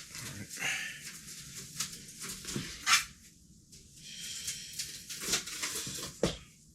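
Rustling and scattered clicks of PC power supply cables and connectors being handled and plugged in, with one sharp click about three seconds in.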